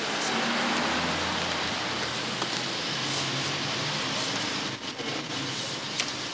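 Street traffic noise: a steady rush of passing vehicles with a low engine hum early on, and a few light knocks near the end as books are handled.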